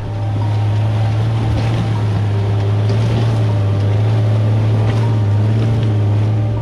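Jeep engine running at steady revs: a loud, steady low drone over rough noise, starting abruptly.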